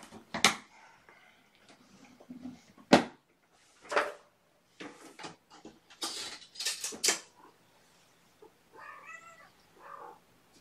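Hard plastic pet carriers knocking and clattering as they are set down and handled, the sharpest knock about three seconds in. Near the end a cat meows.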